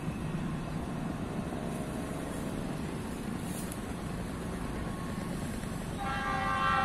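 Low rumble of an approaching train. About six seconds in, the locomotive's horn sounds, a chord of several steady tones held on.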